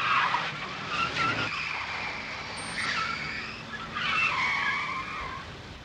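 Car tyres squealing as a car skids and swerves across the road, in about three wavering squeals with the rumble of the car underneath.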